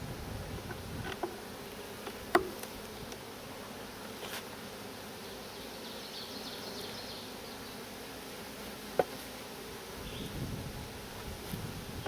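Honey bees buzzing steadily around an opened hive, with a sharp knock a couple of seconds in and another about nine seconds in.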